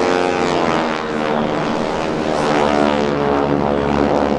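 A formation of SNJ/T-6 Texan trainers flying over, their Pratt & Whitney R-1340 nine-cylinder radial engines and propellers droning loudly together. Several engine tones slide in pitch as the planes pass.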